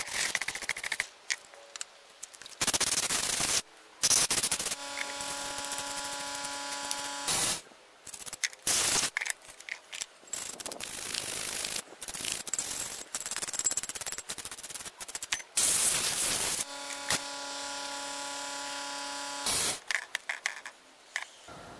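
Wire brush scrubbing an aluminium burner housing in quick rasping strokes, cleaning out dirt and spider webs, broken by loud hissing blasts of compressed air from an air hose. Twice a longer blast carries a steady whistling tone for a few seconds.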